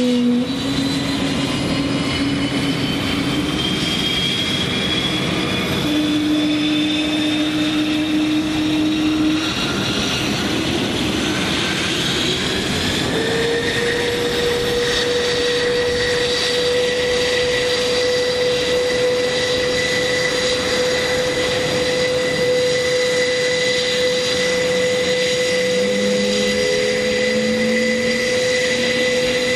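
The Airbus A400M Atlas's four Europrop TP400 turboprop engines are running on the ground, their eight-bladed propellers turning. They make a steady, loud whine and drone with several tones. The pitch climbs gently over the first dozen seconds, then holds steady.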